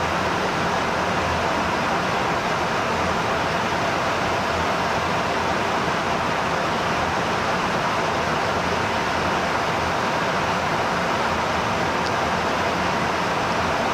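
Steady, unchanging rush of airflow and jet engine noise heard inside a tanker aircraft at the boom operator's window during in-flight refueling.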